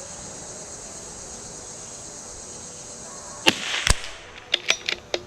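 A single .22LR shot from a CZ 457 bolt-action rifle about three and a half seconds in, followed by a quick series of metallic clicks as the bolt is worked to chamber the next round. Steady insect hiss lies underneath.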